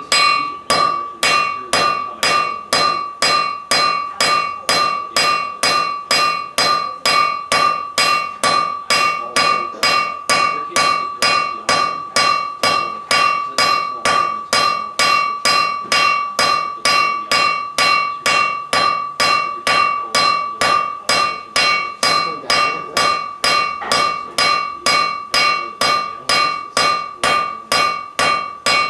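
Blacksmith's hand hammer striking small red-hot iron bar stock on a steel anvil in a fast, steady rhythm of about two blows a second, the anvil ringing under each blow. The blows are fast enough that the small piece is kept hot by the hammering itself.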